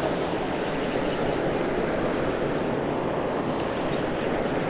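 Fast river current rushing steadily, an even, unbroken wash of water noise.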